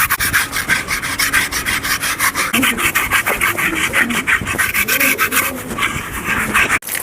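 A grooming brush scrubbing over a horse's coat in quick, even strokes, about five a second, with faint wavering tones underneath in the middle.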